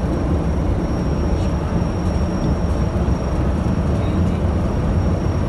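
Cockpit noise of a Cessna Citation's turbofan engines running: a steady low rumble with a thin, steady high whine above it.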